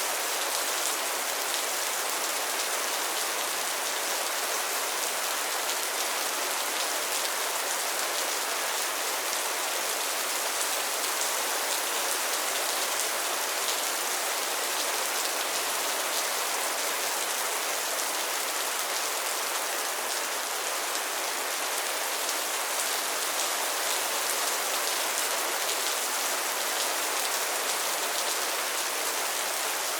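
Steady rain falling on a pond's water and lily pads, a dense even patter of drops with no letup.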